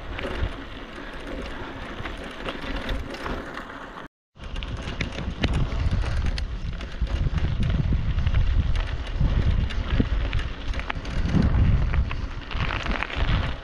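Bicycle ridden over a rutted dirt track: tyre rumble and small rattling clicks, with wind buffeting the microphone. The sound drops out completely for a moment about four seconds in.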